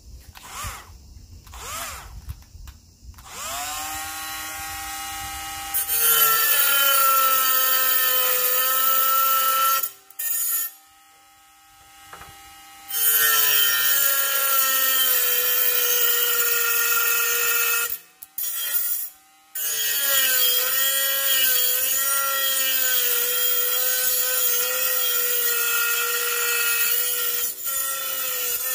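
Bosch GWS 12V-76 cordless 12 V mini angle grinder spinning up with a rising whine, then running loud under load, its pitch dipping and wavering as the disc bites into the work. It is switched off and winds down, then restarted, briefly stopped again and run under load once more.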